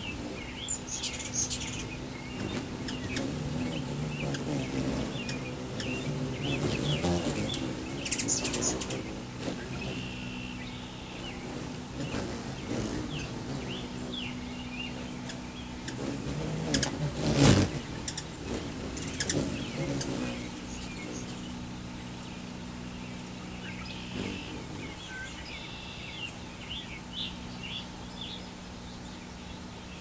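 Hummingbirds at a nectar feeder: repeated short high chirps and chattering calls over the low buzzing hum of their wings, which swells and fades as birds come and go. A brief loud noise cuts through about halfway through.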